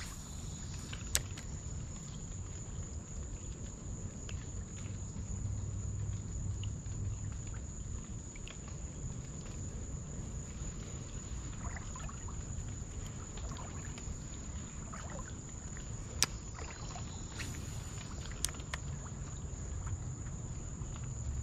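Summer outdoor ambience: a steady high-pitched insect drone over a low rumble, with a few sharp clicks, one about a second in and two more near the end.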